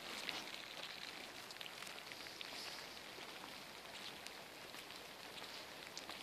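Light rain falling steadily, with many scattered single drops ticking close by.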